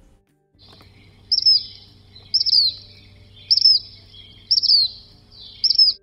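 Black phoebe giving its sharp whistled call five times, about once a second, each a high note that slurs quickly downward.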